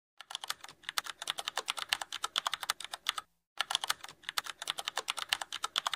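Rapid keyboard-typing clicks, about ten a second, with a brief pause a little past the middle.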